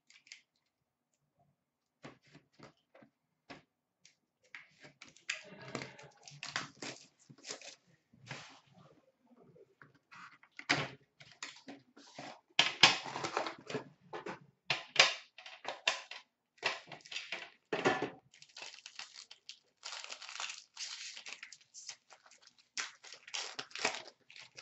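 Hockey card box and pack being opened by hand: taps and clicks of the cardboard box, then plastic wrapping torn and crinkled in irregular bouts, loudest about halfway through.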